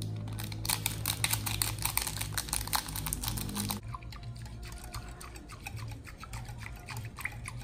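Wire whisk stirring a liquid mixture in a glass bowl, its wires clicking rapidly against the glass. The clicking is dense at first and turns softer and sparser about four seconds in.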